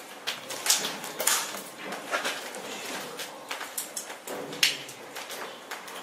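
Scattered small-arms gunfire: irregular sharp cracks and bangs, several in quick succession, with the loudest about a second in and again just before the five-second mark.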